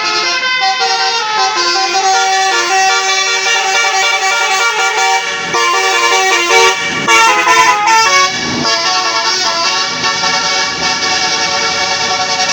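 Tour bus's multi-tone 'telolet' Basuri horn playing a tune of quick stepping notes without a break, louder and rougher for a moment about seven seconds in.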